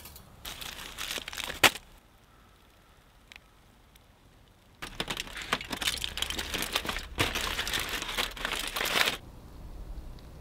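Aluminium foil crinkling as a foil packet is handled and then unfolded by hand: a short spell of rustling ending in a sharp snap, a pause, then about four seconds of steady crinkling.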